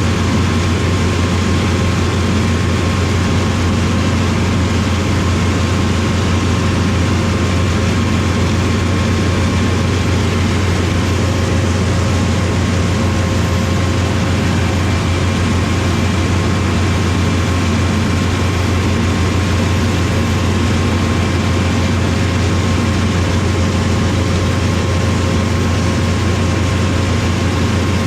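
Heavy corn-harvesting machinery running steadily in the field: a constant low engine drone with a few steady whines over it, unchanged throughout.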